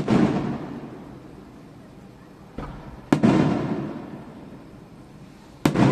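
Aerial firework shells bursting: a sharp bang at the start, a smaller one and then a loud one about three seconds in, and another near the end, each followed by a long rolling rumble that fades away.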